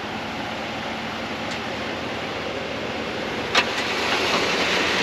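Electric winch steadily spooling its line in under tension, with the vehicle's engine running. A sharp click comes about three and a half seconds in, and the sound gets a little louder after it.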